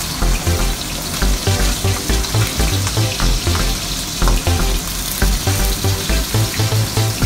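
A whole tilapia frying in hot oil in a wok: a steady, continuous sizzle. Background music with note lines and a pulsing bass plays over it.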